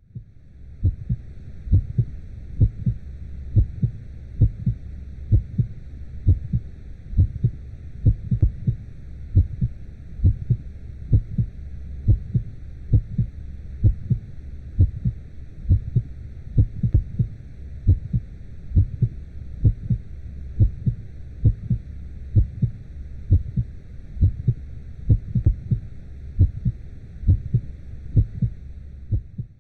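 Womb-style heartbeat sound: a muffled heartbeat repeating steadily in double thumps, a little over one beat a second, over a constant low whooshing rumble and faint hiss.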